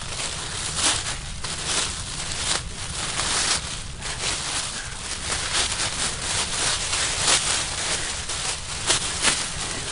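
Foil emergency survival blanket being unfolded and shaken out, crinkling and crackling in a dense run of sharp rustles.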